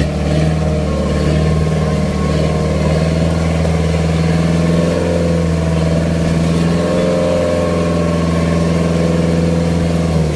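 An engine on a fishing boat running steadily at a constant pitch.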